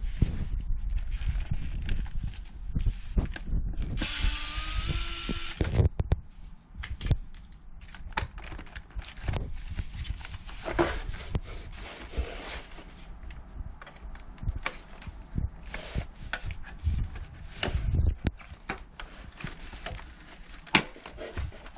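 Cordless power drill/driver running in one burst of about a second and a half, its whine rising, amid scattered clicks and knocks of plastic and metal parts being handled while the air conditioner is taken apart.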